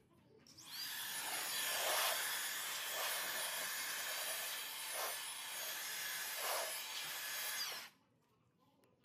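FLEX 18 V cordless blower spinning up with a rising whine, running steadily with a high-pitched whine over a rush of air that swells a few times, then winding down and cutting off about a second before the end.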